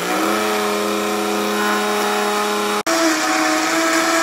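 Vitamix blender motor running fast as it grinds granulated monk fruit sweetener into a powdered sugar, with a steady whine. Near three seconds the sound breaks off for an instant and comes back higher in pitch, the blender now at high speed.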